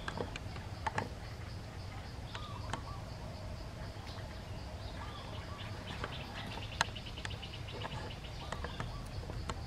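Outdoor forest ambience: a steady high insect drone with a few faint bird chirps, scattered soft clicks and one sharper click about two-thirds of the way through.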